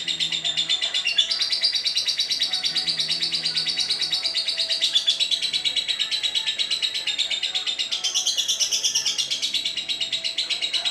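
Lovebird singing a long unbroken chatter of rapid, high-pitched chirps, about ten a second, the sustained song that lovebird keepers call ngekek.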